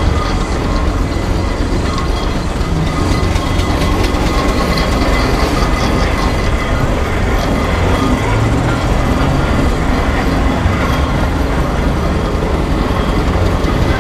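Steam traction engine running along a road while towing a passenger trailer: a steady, loud running noise of the engine and its rolling wheels, with a dense clatter all through.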